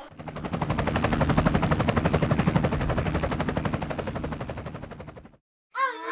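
Drumroll sound effect, an even roll of about ten strokes a second that swells, then fades and cuts off abruptly, the edited build-up before a toy reveal. A bright jingle begins just before the end.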